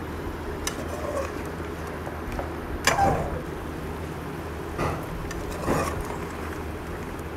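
Metal slotted spoon clinking against an aluminium cooking pot as pieces of mutton are stirred, a few scattered knocks with the sharpest about three seconds in, over a steady low hum.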